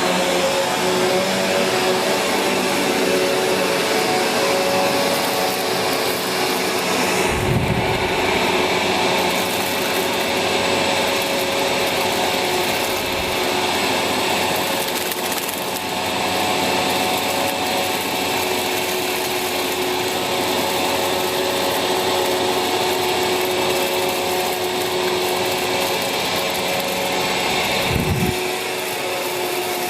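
Sanyo SCA-7AX upright bagged vacuum cleaner running steadily while vacuuming, its motor giving a steady hum with several held tones. Two brief low bumps are heard, one about seven seconds in and one near the end.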